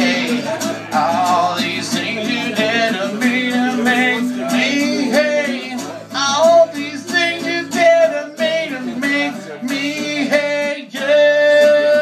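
A man singing live to his own acoustic guitar, wordless or unclear lines over steady strummed chords, with a long held note near the end.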